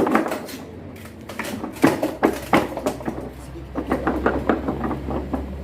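Irregular knocks and clattering of washing machine parts being handled and moved during disassembly. A faint low hum joins about two seconds in.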